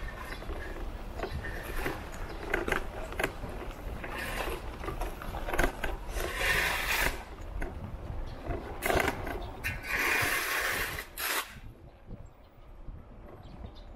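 Street ambience recorded while riding: a steady low rumble under scattered clicks and clatters, with several short hissing swells that end about eleven seconds in.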